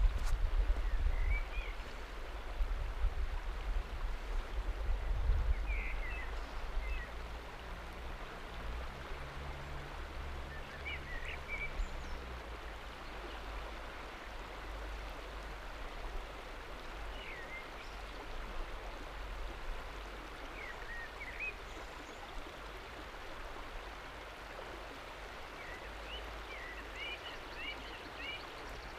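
Lech river water flowing steadily past a rock shelf at its edge, an even rush. A few short high chirps come now and then, and a low rumble sits under it in the first few seconds.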